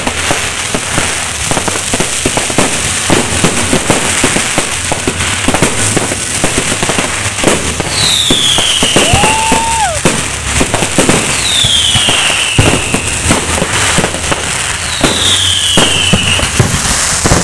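Fireworks going off at close range: a dense, continuous crackle of bangs and pops. From about eight seconds in, whistles that fall in pitch repeat every three seconds or so, and one whistle rises and holds near the middle.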